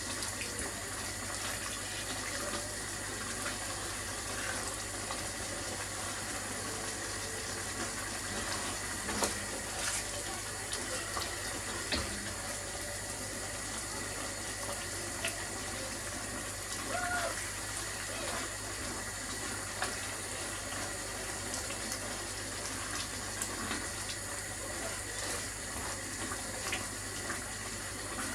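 A pan of chicken curry sizzling steadily on the hob as it cooks, with a few faint clicks.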